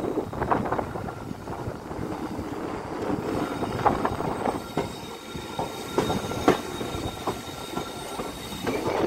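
Passenger train's wheels clicking irregularly over rail joints and points as it pulls out, heard from aboard, with a thin, steady wheel squeal from about three seconds in until near the end.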